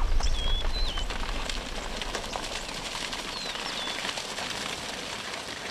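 Small birds chirping in short rising-and-falling notes over a loud rushing, crackling noise with a low rumble; the noise sets in suddenly and slowly fades.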